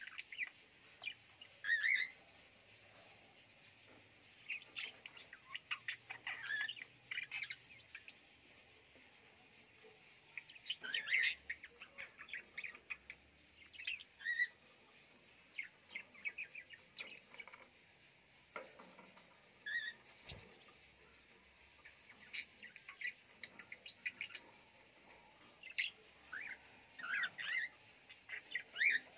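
Budgerigars chirping and chattering in short, scattered bursts of high calls, with brief quiet gaps between them.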